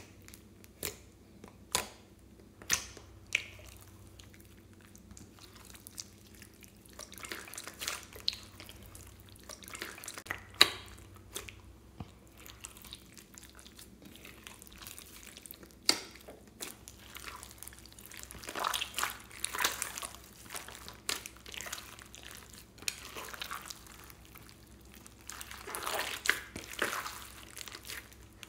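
Hands kneading and stretching a large batch of wet, glossy slime in a glass bowl: sticky squelching, with a few sharp clicks and pops in the first few seconds and denser squishing later.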